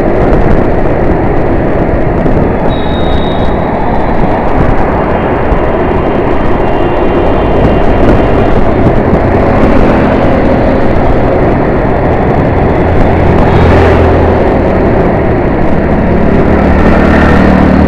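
Dense road traffic: many vehicle engines running close by in a steady loud wash, with a heavier engine's low drone strengthening about ten seconds in and again near the end.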